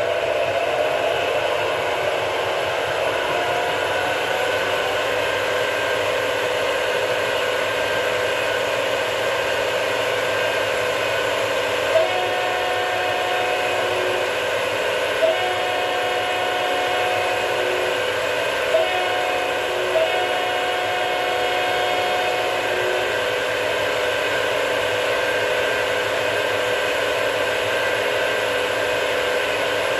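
ESU LokSound XL V4.0 sound decoder in a Piko G-scale BR 199 model locomotive, playing its 12 KVD diesel engine sound steadily through the model's speaker with the loco standing still. Through the middle come four sharp clicks, each followed by a steady held tone.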